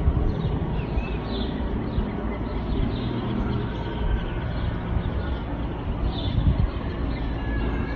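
Steady outdoor background noise with a heavy low rumble and faint, high bird chirps now and then.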